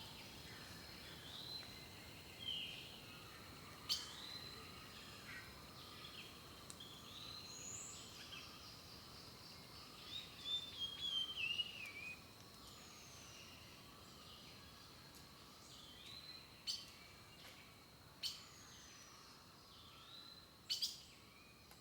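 Wild birds singing and calling: many short chirps, a falling trilled phrase about halfway through, and a few sharp, high calls near the end, over a faint steady hiss.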